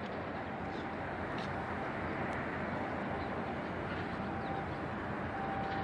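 Steady harbour ambience: an even low rumble and hiss, with a faint thin tone coming and going and a few faint clicks.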